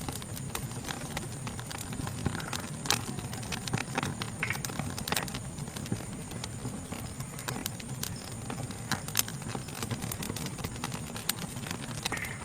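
Wood fire crackling, with irregular sharp pops over a low steady rumble, and a steady high insect chorus behind it.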